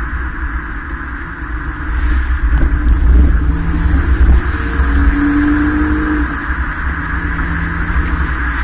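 A 2013 Hyundai Veloster Turbo's 1.6-litre turbocharged four-cylinder running through a Borla aftermarket exhaust while driving, with a steady low rumble and road and wind noise. About two seconds in it gets louder as the car accelerates, then settles into a steady exhaust tone.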